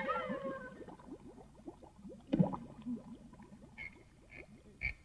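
Cartoon underwater bubbling sound effect: a rapid string of short falling bloops, with a knock about two seconds in and a few short sharp taps near the end.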